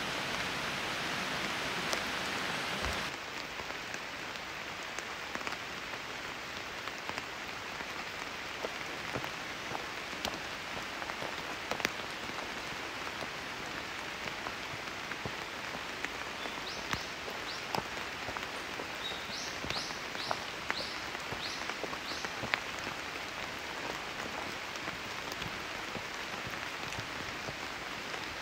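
Steady rain falling through forest foliage, an even hiss with scattered close, sharper drop ticks. The hiss softens slightly about three seconds in, and a short run of high chirps comes through about two-thirds of the way.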